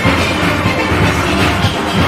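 A large steel orchestra playing at full ensemble: many steelpans sounding together over a steady drum beat.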